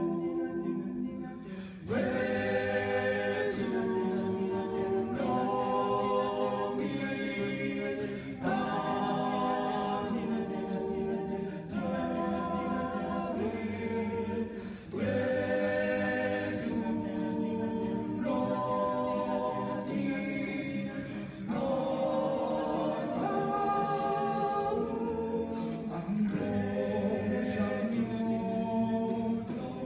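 Student a cappella choir singing held chords in slow phrases, with no instruments. A new phrase comes in roughly every six or seven seconds, each after a brief drop in level.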